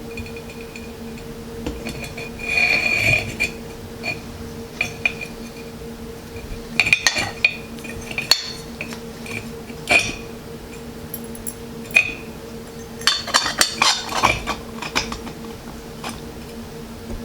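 Metal and glass parts of a ceiling fan light kit clinking and knocking as they are handled and fitted back together, in scattered clinks with a brief ringing clink near the start and a quick cluster near the end, over a steady low hum.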